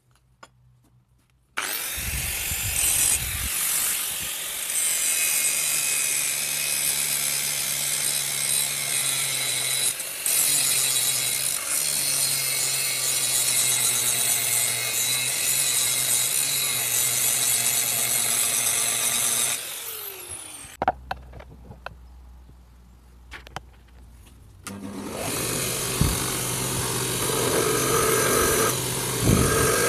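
Angle grinder with an abrasive disc grinding a coil-spring steel knife blank clamped in a vise. It starts about a second and a half in, runs as a loud, steady grind, and stops about twenty seconds in with a falling whine as the disc spins down. After a short lull a belt grinder starts up, and the blade is held against the running belt.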